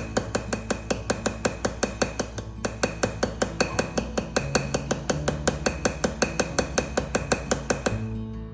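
Small hammer peening a pocket knife's brass pins, light rapid taps at about five a second with a metallic ring, spreading the pin ends to draw the handle together; the tapping stops near the end.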